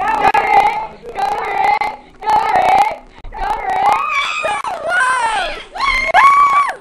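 A high-pitched voice singing or squealing wordless held notes, about six of them with short breaks between, the pitch bending up and down; the last note rises and then holds.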